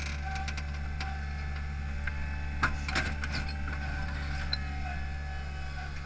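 Hydromak paving machine's engine running steadily, with a few sharp clacks from the Probst paver clamp and arms about halfway through.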